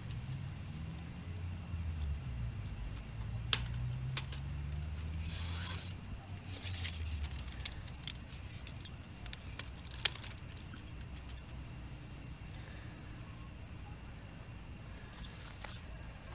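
Tape measure being handled while measuring: a few sharp clicks and short sliding, rattling noises from the metal tape, over low handling rumble for the first several seconds. A faint high pulsing chirp runs steadily underneath.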